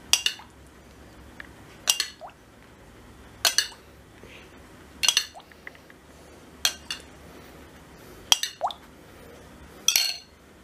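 A metal spoon clinking against a glass bowl seven times, about every second and a half, as egg-and-oil sauce is scooped out of the bowl and spooned over yufka pastry.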